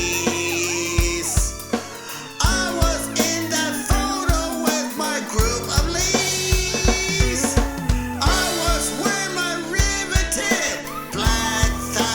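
Song playing: a singing voice over a steady, regular drum beat.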